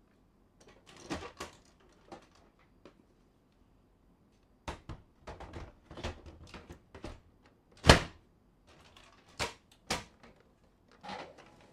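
Plastic clicks and knocks as a toner cartridge is set into an HP NeverStop Laser MFP 1200w printer and its top cover is pressed shut. The knocks come singly and in a quick cluster, with the loudest one about eight seconds in and a few more near the end.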